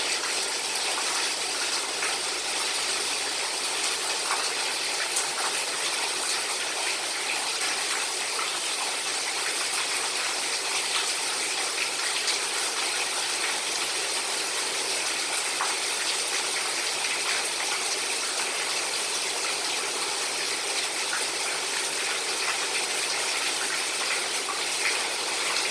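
Rainwater falling from a roof's eaves in steady rain: a continuous splashing hiss dotted with many small drop ticks.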